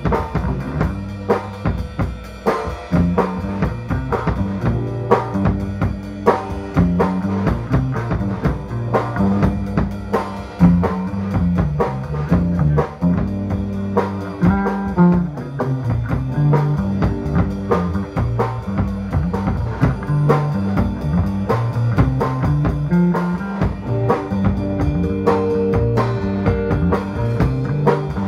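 Live rock band playing: a Tama drum kit with busy kick, snare and rimshot hits, under electric guitar and a moving bass line.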